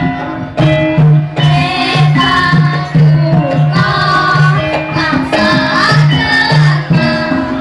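Javanese gamelan ensemble playing a steady rhythmic piece, its struck bronze tones repeating in a regular pulse, with a voice singing over it from about a second and a half in.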